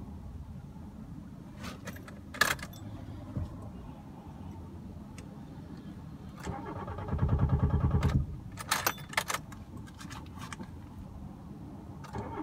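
A 2010 Nissan Sunny being started: keys jangle in the ignition, then the starter cranks the engine with a rhythmic pulsing for about a second and a half, and a short second crank a moment later gets it to fire. This is the hard start it gives after sitting parked.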